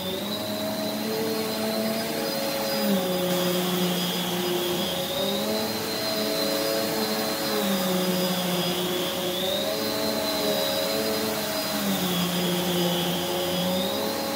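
Prolux X8 Elite backpack vacuum running with its EBK360 power nozzle being pushed back and forth over carpet. It makes a steady whine whose pitch dips and rises again about every four and a half seconds, three times over.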